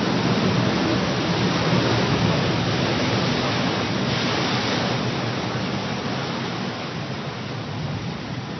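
Steady rushing of sea surf washing into a coastal sea cave, slowly getting quieter toward the end.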